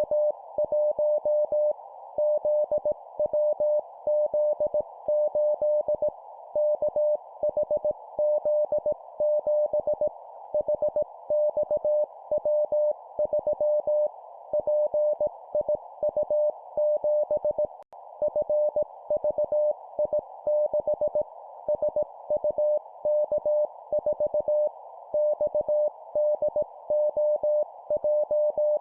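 Morse code (CW) practice sent at 17 words per minute: a single mid-pitched tone keyed on and off in dots and dashes, spelling out four-character groups of three letters and a number. It sits over a narrow band of hiss like a receiver's filtered noise, with a momentary dropout about 18 seconds in.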